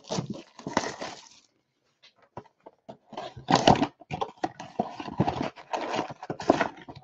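Cardboard card boxes and wrapped packs being handled: irregular rustling and scraping with small knocks, with a quiet pause about two seconds in and louder rustles in the second half.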